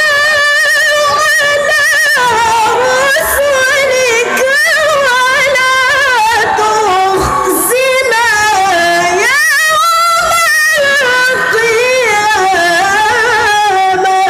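A woman recites the Qur'an in the melodic mujawwad tilawah style into a microphone. Her voice is solo and unaccompanied, in long held phrases with wavering, ornamented turns of pitch and only short breaths between them.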